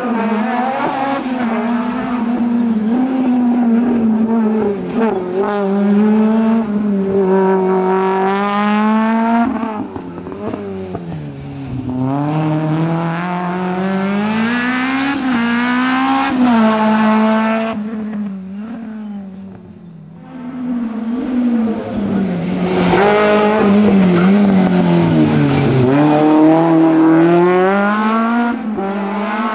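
Peugeot 309 GTi 16V rally car's four-cylinder engine revving hard through the gears, its pitch climbing and dropping at each shift. About two-thirds of the way through it fades, then comes back loud on another pass.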